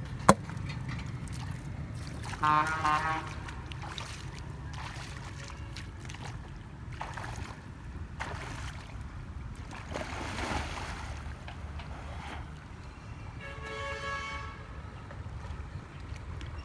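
Water sloshing and splashing as a man wades out through a river, over a steady low rumble. A sharp click comes right at the start, and two brief pitched sounds stand out, one about two and a half seconds in and one near the end.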